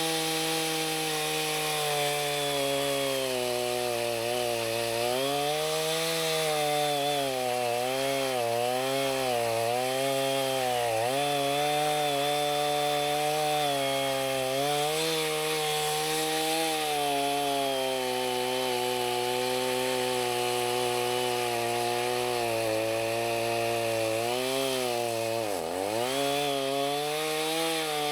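Two-stroke chainsaw running under load, cutting through a dead white oak log. The engine pitch sags and recovers as the chain bites, with a deeper dip about eleven seconds in and again near the end.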